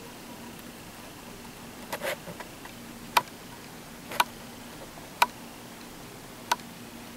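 Five sharp single clicks roughly a second apart, the first with a few softer clicks just after it, over a faint steady hum.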